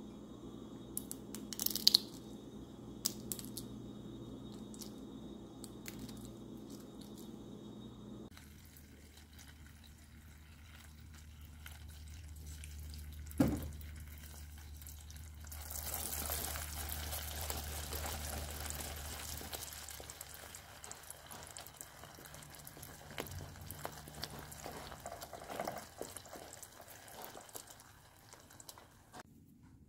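A few sharp clicks at the start as brittle threads of set sugar syrup are handled. Then sugar syrup boils in a stainless steel pot with a steady bubbling hiss that grows louder about halfway through. The syrup has reached the hard-crack stage for candied apples.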